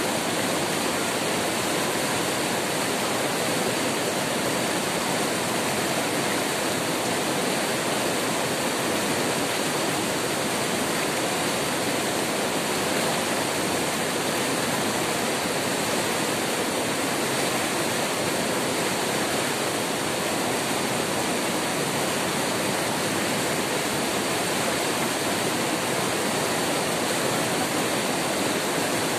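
White water of a rocky river rapid rushing over boulders: a steady, unbroken rush.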